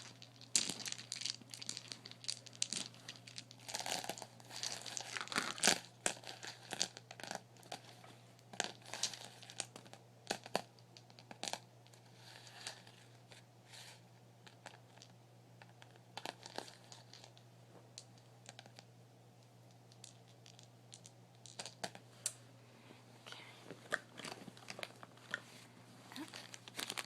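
Plastic packaging crinkling and crackling as it is handled close up, with many small clicks and taps. It goes quieter and sparser for a few seconds past the middle, then picks up again near the end. A steady low hum runs underneath.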